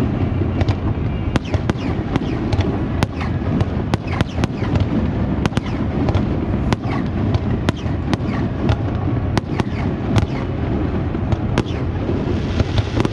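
Fireworks display going off: a dense, irregular run of sharp cracks and pops over a constant low rumble of booms.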